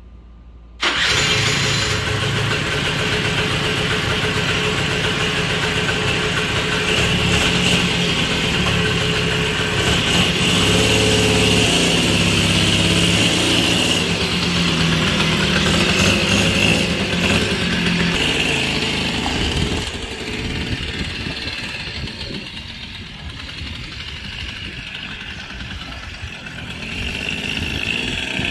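Suzuki LT80's small two-stroke single-cylinder engine catching about a second in and running with its speed rising and falling, then settling lower and quieter about twenty seconds in. This is its first run after a top-end rebuild with a bored-over cylinder and new piston.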